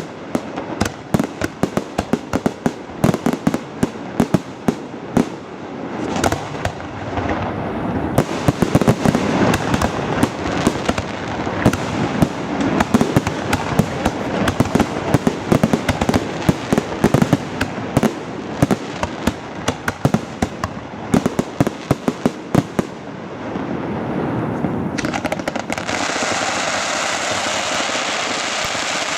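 Aerial fireworks display: a dense barrage of shell bursts and crackling, many rapid bangs close together. In the last few seconds the bangs thin out and give way to a steady rushing noise.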